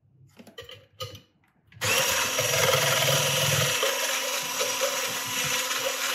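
Electric hand blender with a whisk attachment switching on about two seconds in and running steadily, its motor whine and the whisk's hiss as it whips egg whites to stiff peaks.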